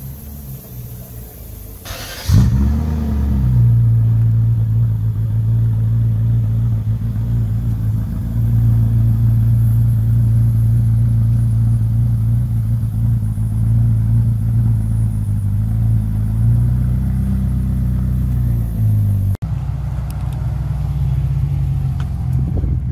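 Ferrari F40's twin-turbo V8 cranks and fires about two seconds in, flares briefly in pitch, then settles into a steady idle. Near the end the sound cuts abruptly to another car's engine running at a lower pitch.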